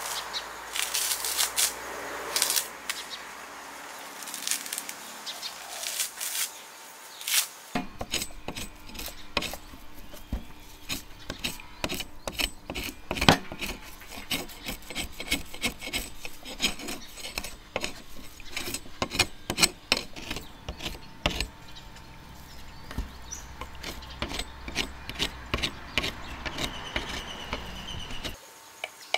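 Heavy knife blade scraping and shaving the dry fibrous husk off a coconut: rapid rasping strokes on the fibre. There are a few sharper knocks in the first seconds.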